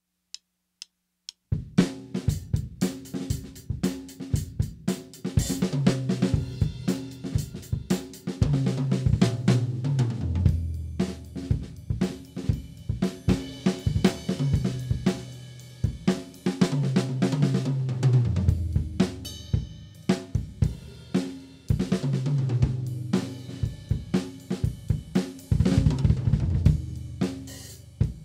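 PDP MX maple-shell drum kit played: a groove on snare, bass drum, hi-hats and cymbals starts about a second and a half in after a few light taps. Fills down the toms, stepping from high to low, come roughly every six seconds.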